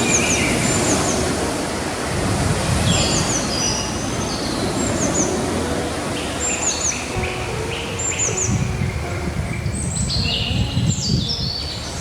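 Ocean surf washing steadily on a beach, rising and falling, with small birds chirping over it in repeated quick series of short high notes.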